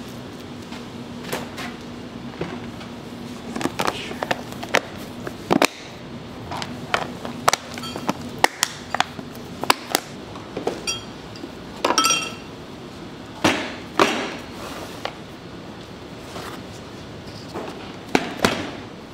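Kitchenware knocking and clinking at irregular intervals, a couple of the clinks ringing briefly, over a low steady hum in the first half.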